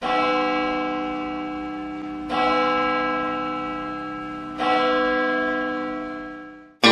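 A bell tolling three times, about two seconds apart, each strike ringing on and slowly fading before the next; the last ring dies away just before the end.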